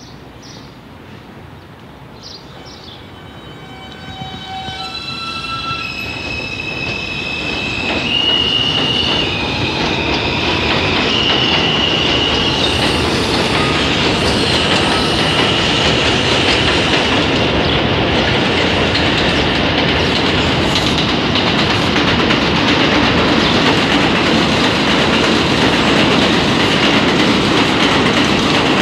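R160A-1 subway trains moving through the station. Over the first dozen seconds there is a series of held electronic-sounding tones that change pitch in steps, typical of the Alstom propulsion as a train gets under way. The cars' running noise on the rails grows from about four seconds in, turns loud near eight seconds and holds steady.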